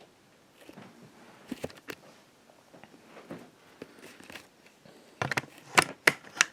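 Scattered light clicks and taps, with a quick run of sharper, louder clicks near the end.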